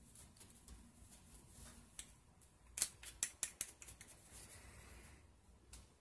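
A quick run of about half a dozen sharp clicks a little under three seconds in, over faint scraping, as a knife and hands work a PVC pipe piece whose end is filled with partly hardened Bondo.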